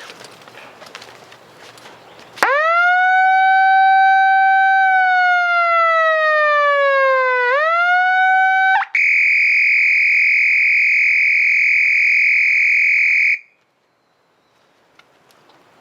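Electronic siren sounding loudly. It starts with a wail that swoops up, holds, slowly sinks and climbs again, then switches to a steady shrill tone for about four seconds, which cuts off suddenly.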